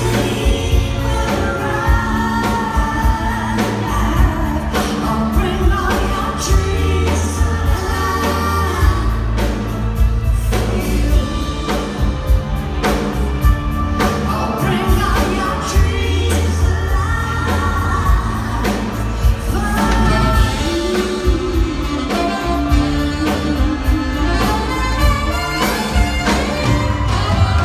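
Live pop band playing while a female lead singer sings, with backing vocalists joining in; piano and electric guitar are in the band.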